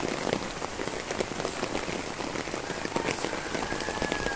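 Rain falling steadily, a dense patter of drops.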